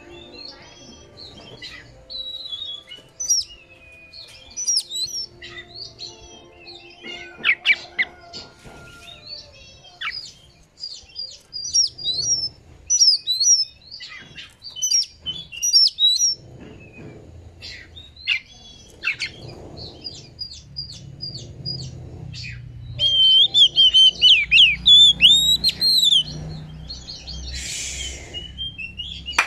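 Oriental magpie-robin singing a varied song of short whistles, chirps and trills, with a loud run of fast warbling near the end. A brief rustle comes just before the end.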